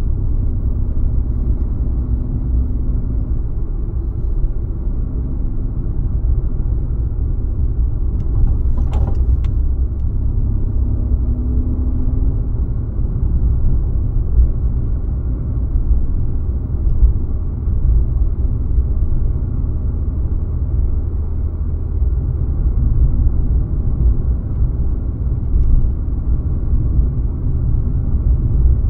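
A car being driven: a steady, low rumble of road and engine noise, with one short click about nine seconds in.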